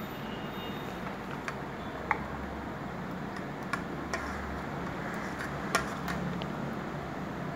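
White plastic spoon spreading thick cream in a stainless steel bowl: scattered sharp clicks and taps of the spoon against the metal, the loudest a little before six seconds in, over a steady low hiss.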